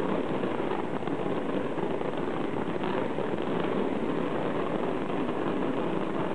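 Aerial fireworks going off in a dense, continuous crackle of rapid small reports, with no single loud bang standing out.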